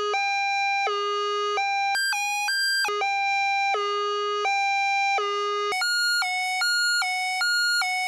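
Cartoon ambulance's two-tone hi-lo siren, alternating between two pitches. A brief higher-pitched pattern comes about two seconds in. About six seconds in, the siren switches to a higher pair of pitches that alternate faster.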